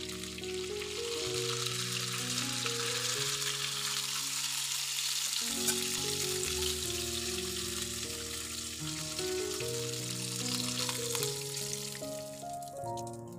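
Chicken pieces sizzling as they fry in hot oil in a nonstick kadai, a steady crackling hiss that dies down near the end as the pieces are lifted out. Background music plays underneath.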